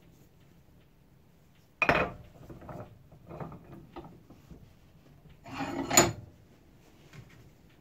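Metal handling noises as an old blacksmith's hammer head is set into a steel bench vise and clamped: a sharp clunk about two seconds in, a few lighter knocks and scrapes, then a longer scraping run as the vise closes, ending in the loudest sharp clank about six seconds in.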